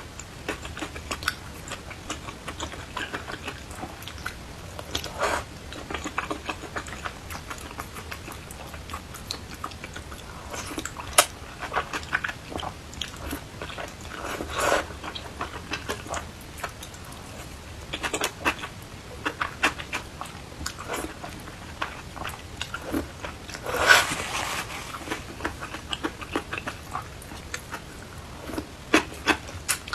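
Close-up eating sounds: a person chewing and biting, with many irregular small clicks and a couple of longer noisy bursts, one about halfway through and a louder one past three quarters of the way.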